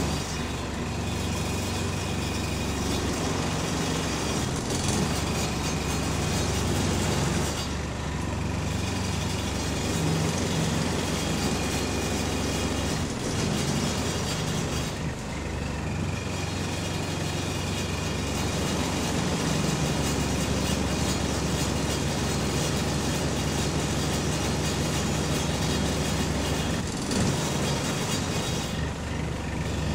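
Inside a moving bus: the engine runs with a steady low drone while interior panels and fittings rattle continuously from its vibration, easing off briefly a few times.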